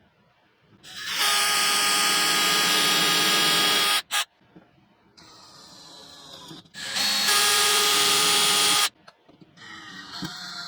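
A small motor running in two bursts, the first about three seconds long and the second about two, each with a steady whine and an abrupt start and stop.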